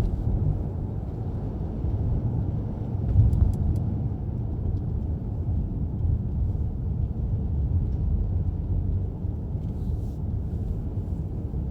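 Steady engine and road rumble heard from inside a moving car's cabin, with a brief louder bump about three seconds in.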